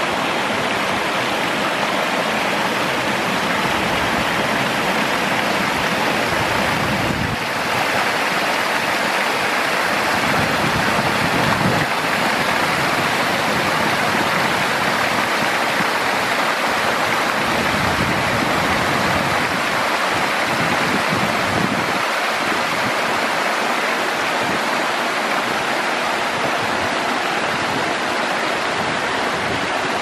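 Shallow stream running over flat rock shelves and spilling down small cascades: a steady rush of water.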